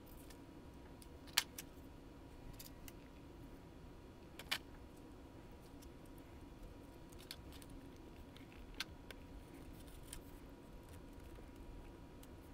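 Faint small clicks and ticks of metal contact clips, springs and plastic motor parts being handled and fitted into a toy train's pancake motor, with two sharper clicks in the first half and a few lighter ones later.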